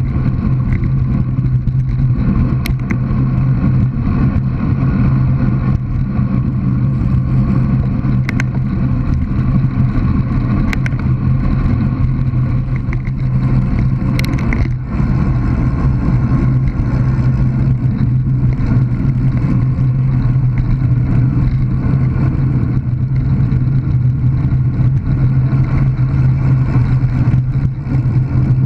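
Steady wind rush and tyre rumble from riding a bicycle fast along a tarmac lane, with a few sharp knocks from bumps in the road.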